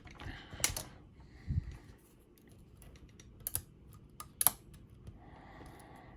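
Lock pick and tension wrench working the pins of an Illinois Duo cam lock: a few sharp metallic clicks and light scraping, with one dull knock about a second and a half in.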